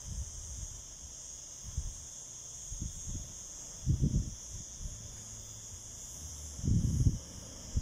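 Steady high-pitched drone of insects chirring in the coastal scrub, with low gusts of wind buffeting the microphone, the strongest about four seconds in and again near the end.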